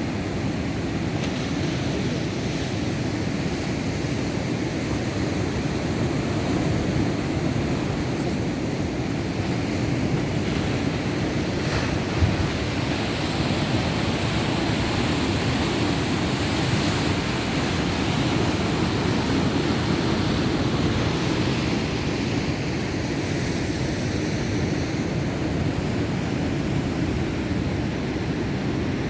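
Rough sea with heavy surf: waves breaking in a continuous roar of water that swells and eases a little, with wind on the microphone.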